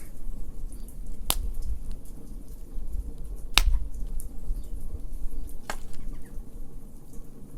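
Wood fire crackling over a low rumble of burning, with three sharp pops about two seconds apart, the loudest near the middle.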